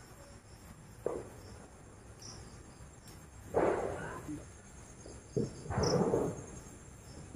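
Crickets chirping steadily with a high, even trill. Two louder, short noisy bursts stand out, about three and a half and five and a half seconds in.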